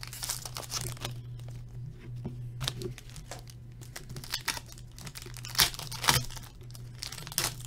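Foil wrappers of 2015-16 Upper Deck AHL hockey card packs being torn open and crinkled by hand. The crackles come irregularly, the sharpest about two-thirds of the way through and again near the end, over a steady low hum.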